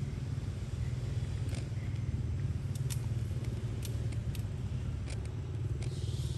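A steady low rumble with scattered light clicks and ticks over it.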